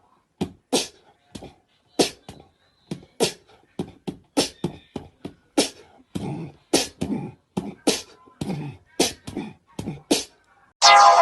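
A run of short, sharp knocks or clicks, irregularly spaced at about two or three a second, with silence between them. Music starts just before the end.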